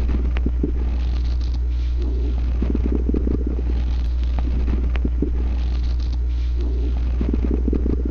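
Stomach growling: two bouts of gurgling rumble, one about two seconds in and one near the end, over a steady low hum.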